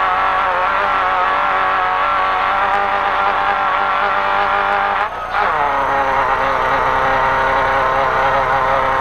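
A Toyota 3RZ four-cylinder engine in an off-road race truck running hard at high revs, heard from inside the cab. The note is steady, then briefly dips about five seconds in and comes back at a lower pitch.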